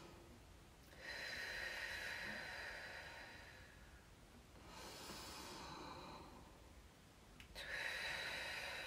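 A woman's deep, slow yoga breathing close to the microphone: a long breath of about three seconds, a shorter, softer one, then another long breath near the end. These are the preparatory deep breaths before a stomach-vacuum hold.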